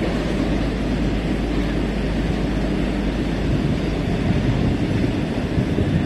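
Container freight train's wagons rolling along the track as it moves away, a steady rumble.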